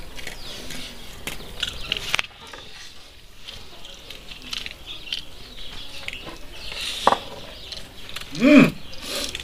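Meal sounds: spoons clinking against aluminium pots and plates in scattered light clicks. About eight and a half seconds in comes a short vocal sound that rises and falls in pitch, the loudest moment.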